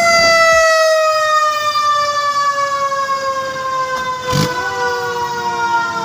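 Fire truck siren wailing, its pitch falling slowly and steadily after a quick rise. About four and a half seconds in there is a short knock, and a second, higher tone rises in and falls alongside the first.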